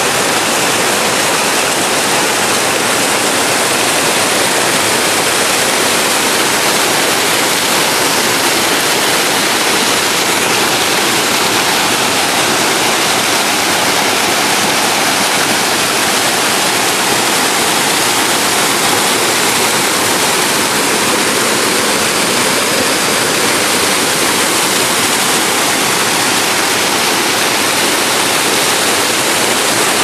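Waterfall in heavy flow: a loud, steady rush of falling water.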